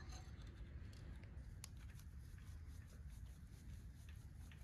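Near silence: a low, steady room hum with a few faint clicks of metal timing parts being fitted by hand on the front of an LS V8 block, one a little sharper about a second and a half in.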